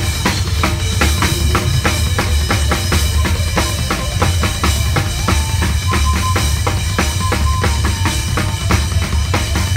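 Rock drum kit with double bass drums played hard and fast along with a band: a dense run of kick, snare and cymbal hits over a constant low bass, with a short held note from another instrument partway through.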